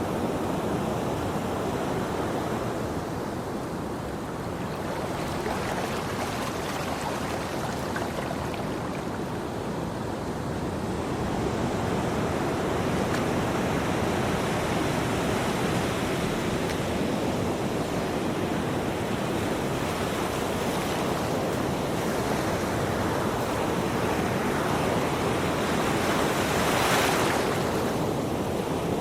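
Ocean waves washing onto a shore in a continuous surf, swelling and easing over several seconds, with one stronger wave breaking near the end.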